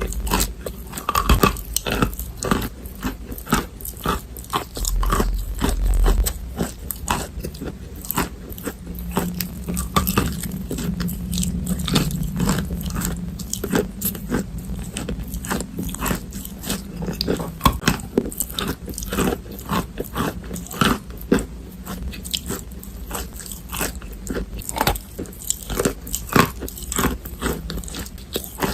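Close-miked biting and chewing of chalk: many sharp, irregular crunches, several a second, as pieces are bitten off and ground between the teeth.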